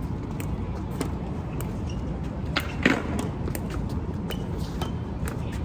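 A tennis ball being rallied with racquets against a concrete wall: a string of sharp knocks from racquet strikes and the ball hitting the wall and court, the loudest about three seconds in, over steady low background noise.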